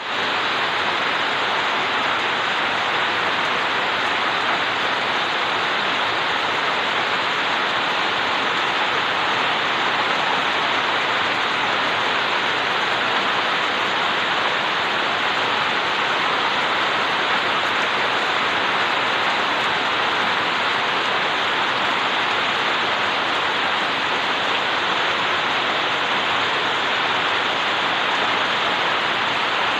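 Steady rain falling: an even, unbroken hiss that stays at one level throughout.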